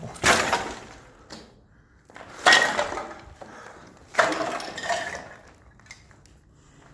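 Loose scrap metal and debris clattering three times, each clatter with a short metallic ring.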